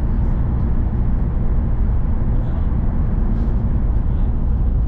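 Steady low rumble of a shuttle bus's engine and tyres, heard from inside the cabin while cruising at motorway speed.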